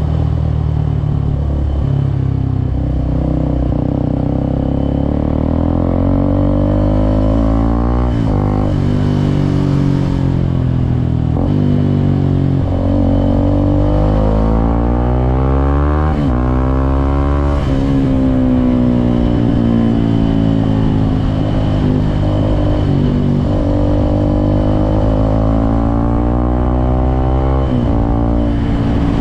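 Suzuki Gixxer SF 250's single-cylinder engine on the move, its revs climbing and dropping several times with brief breaks between, as through gear changes and throttle on and off.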